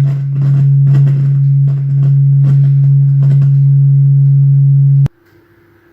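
Yamaha DGX-305 keyboard sounding a steady low note through its speakers, broken by scratchy crackles from its volume potentiometer as it is turned: the pot is crackling badly. The note cuts off suddenly about five seconds in.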